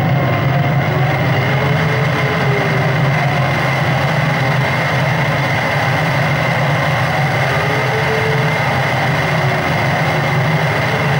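Live electronic soundtrack played from a laptop: a steady, dense engine-like drone with a strong low hum and faint thin tones that slowly waver above it.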